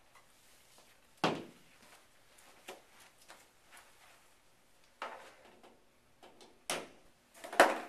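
A handful of separate sharp clicks and knocks from handling the conveyor's power plug connection and its metal side panel, the loudest knock near the end.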